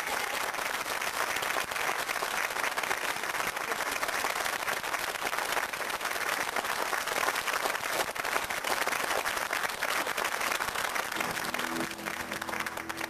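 Studio audience applauding steadily, with dense overlapping claps. The applause thins near the end as the first notes of music come in.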